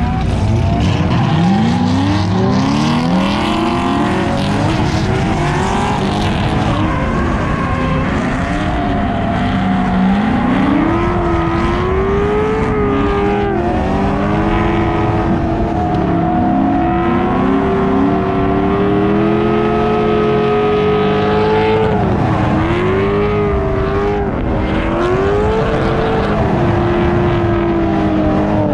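Corvette V8 engine revving hard through a drift, climbing in pitch in the first few seconds, then held high with repeated rises and dips on the throttle and falling away near the end, over the rushing noise of spinning tires.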